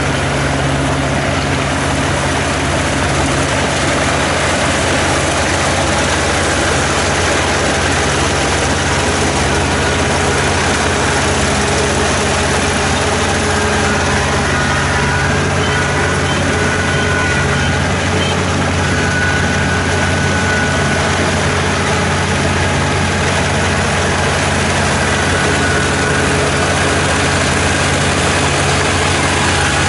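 ER447 combine harvester running steadily while harvesting wheat: a constant engine hum under a dense, even mechanical noise, unchanged throughout.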